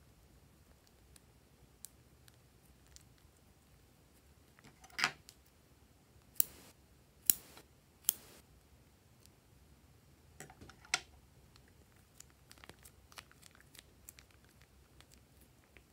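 Scissors snipping into a plastic zip-lock bag of slime: a few sharp single snips close together, amid crinkling of the bag's plastic and scattered small clicks.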